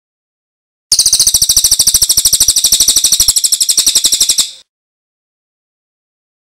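A songbird's fast, even, high-pitched trill lasting a little under four seconds, starting about a second in and cutting off abruptly, with dead silence around it, as in a looped bird-song training (masteran) recording.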